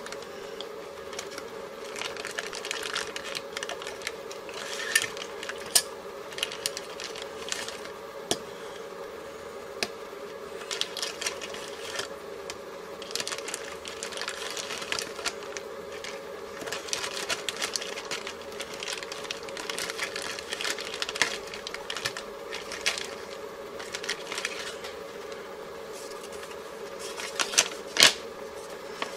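Zip-lock plastic bags of electronic kit parts crinkling and rustling as they are handled, with sharp clicks now and then, over a steady hum.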